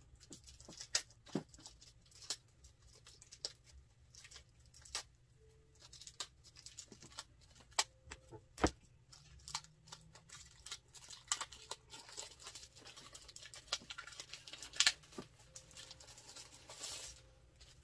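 Protective wrapping being crinkled and peeled off a drone's remote controller: a run of small crackles and rustles, busiest in the last several seconds.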